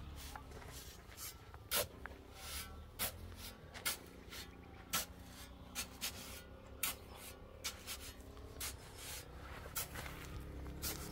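Irregular short scraping strokes, about one a second, some sharper than others, over a low steady hum.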